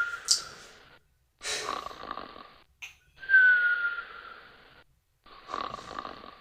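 A woman snoring in her sleep: a rasping snore, then a high whistling tone that slides slightly down in pitch, repeating about every three and a half seconds.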